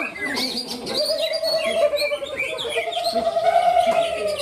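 Several greater green leafbirds (cucak ijo) singing at once, a dense tangle of quick chirps and warbling phrases, with one long steady lower note held from about a second in.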